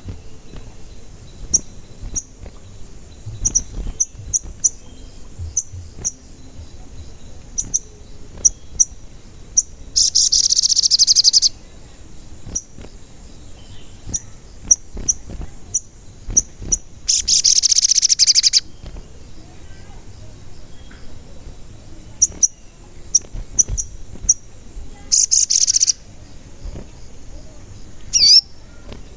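Sogon bird calling: short, sharp, high 'cuit' chirps repeated irregularly, broken three times by a long, loud, rapid chattering call, with a quick up-and-down call near the end.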